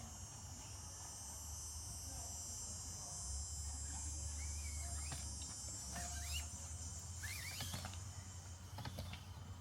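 A steady high-pitched drone of insects, with a few short chirps and some scattered light clicks.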